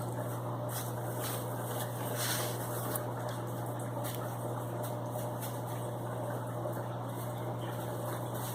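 Steady low hum with faint bubbling from aquarium air pumps and filters running, with a few light clicks and rustles of fish bags being handled.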